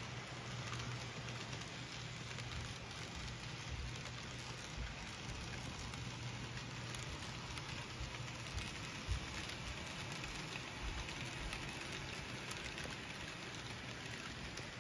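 N scale model freight train running along the track, led by ScaleTrains ET44AC diesel locomotives: a steady, crackly rush of small wheels and motors with a low hum underneath.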